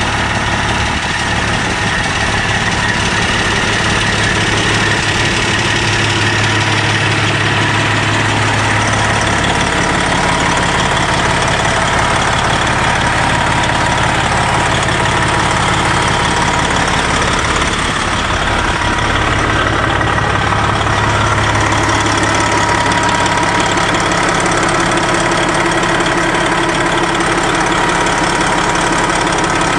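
Diesel engine of a 2000 Freightliner Century Class 120 semi-truck idling steadily, heard close up at the open engine bay.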